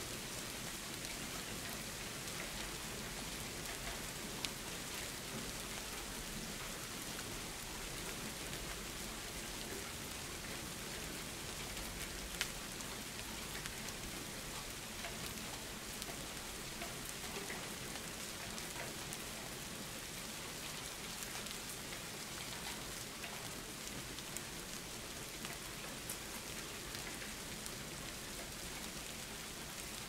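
Steady rain falling, a continuous hiss dotted with individual drops ticking, two of them a little louder, about four and twelve seconds in.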